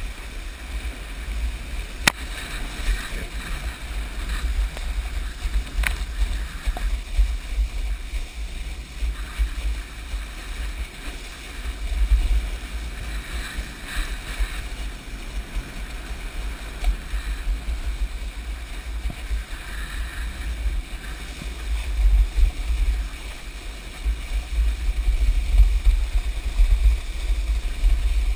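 Wind buffeting the microphone and water rushing and splashing while being towed at speed behind a speedboat across its wake. Two sharp knocks come about two seconds in and again about six seconds in.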